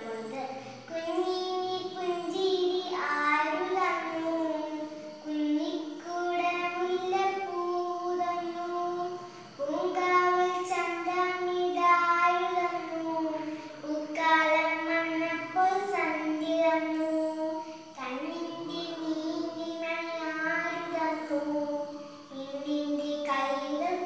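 A young girl singing solo in long held notes, in phrases of about two seconds each.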